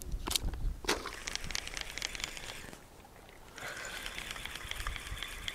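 Carp groundbait of pellets and crushed tiger nuts being stirred in a bucket: two sharp crunches in the first second, then lighter crackles that die away about three seconds in.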